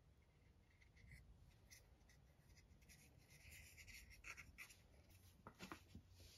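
Very faint handling of a small wooden miniature table frame: light rubbing and scratching of wood in the fingers, then a few soft knocks about five and a half seconds in as it is set down on the cutting mat.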